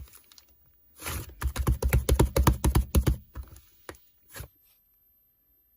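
A rapid, even run of clicks, about nine a second for roughly two seconds, then a couple of single clicks.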